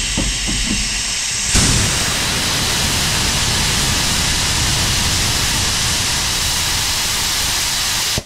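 Steam hissing from narrow-gauge steam locomotive No.7 'Tom Rolt'. A lower hiss swells suddenly about one and a half seconds in to a loud, steady, full hiss of escaping steam.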